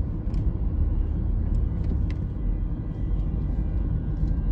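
Car cabin noise while driving slowly: a steady low rumble of engine and road, with a few faint ticks.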